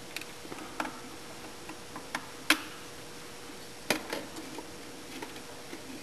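Scattered light clicks and taps from a screwdriver and hands working on the wiring terminals of a sawmill's up-down drum switch, the sharpest click about two and a half seconds in and another near four seconds.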